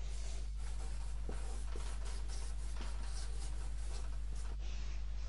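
Felt-tip marker drawing on flip chart paper, a run of short strokes, over a steady low hum.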